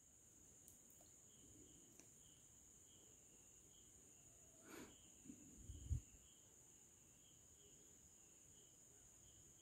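Near silence with faint insect chirping, about two pulses a second, and a few soft bumps about five seconds in.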